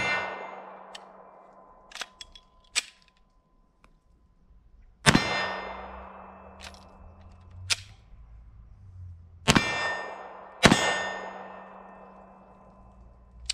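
9mm pistol on a Polymer80 PF940V2 (Glock 17-type) frame fired one round at a time: shots about five, nine and a half and ten and a half seconds in and another at the very end, each followed by a metallic ring that fades over a couple of seconds. Lighter clicks fall between the shots, and the ring of a shot fired just before is still fading at the start. The new build is not feeding reliably.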